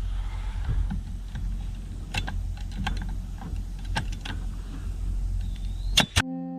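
Brad nailer driving 1¼-inch brads into wooden fence pickets: a few sharp shots about two seconds apart over a low rumble. Acoustic guitar music cuts in just before the end.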